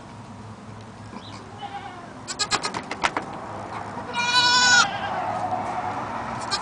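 A cashmere goat bleats once, a single high-pitched call of well under a second, a little past halfway. Shortly before it comes a quick run of sharp clicks and rustles.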